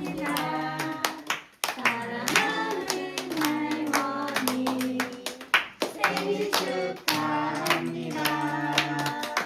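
A song with singing and sharp hand claps or knocks keeping time.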